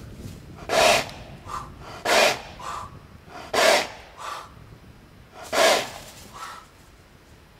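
A Morgan stallion and a person blowing back and forth at each other in play: four loud, breathy blows through the nostrils about a second and a half apart, each followed by a fainter puff.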